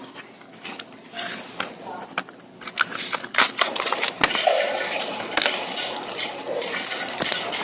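Crinkling and clicking of the plastic packaging around Yu-Gi-Oh booster packs as they are handled, sparse at first and busier from about three seconds in.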